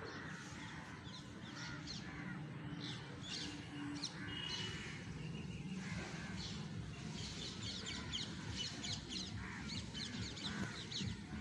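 Many birds chirping at once in a busy evening chorus, the chirps growing denser in the second half, over a steady low rumble.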